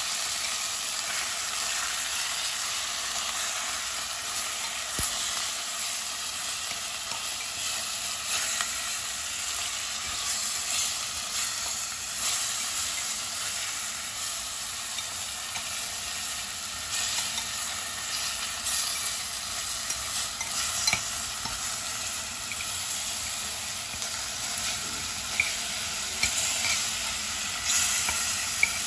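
Chunks of pork sizzling steadily as they sear in hot oil in a pot, with occasional sharp clicks as chopsticks turn the pieces, more of them near the end.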